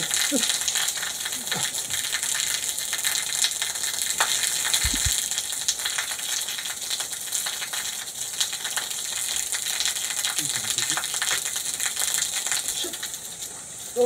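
Thin waterfall pouring onto wet rock: a steady hiss of falling water with fine spattering of drops.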